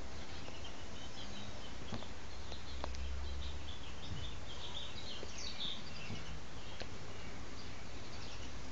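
Steady background hiss with faint, high-pitched chirping through the middle, and a few light taps from a cat's paws on a tile floor as it bats at an insect.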